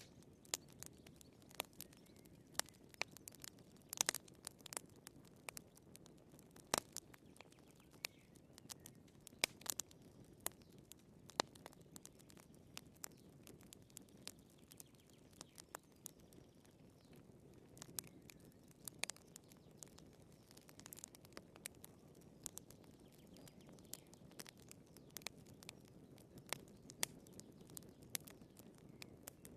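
Wood fire burning in a fireplace: irregular sharp crackles and pops, several a second, over a faint low rush of the flames.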